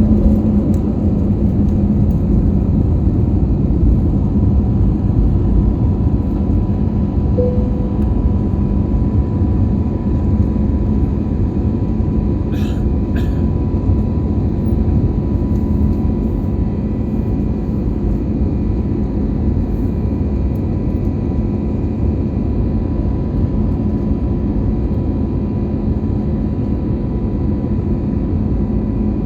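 Airbus A321 cabin noise during takeoff: the jet engines and airflow make a steady, loud, low rumble with a faint steady hum over it.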